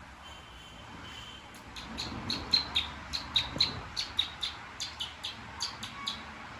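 A small bird chirping, a quick run of short high chirps about three or four a second, starting about a second and a half in.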